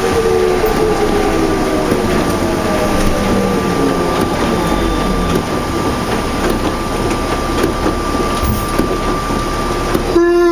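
Inside a 2004 New Flyer D40LF diesel bus with a Cummins ISL engine and ZF transmission, running in heavy rain. A pitched drivetrain whine slides down over the first few seconds as the bus slows, a steady high tone runs beneath it, and near the end a sharp pitched sound drops quickly.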